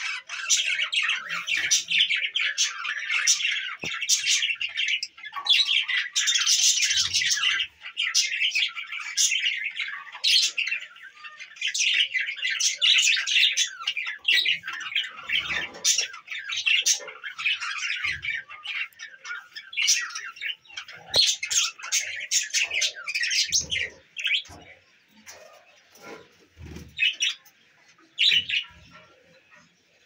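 A flock of budgerigars chattering, chirping and squawking, many birds at once, thinning to scattered calls in the last few seconds.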